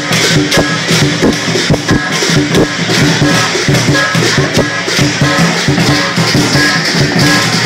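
Lion dance percussion: drum beats and clashing cymbals in a dense, uneven rhythm, with short repeated pitched notes over them.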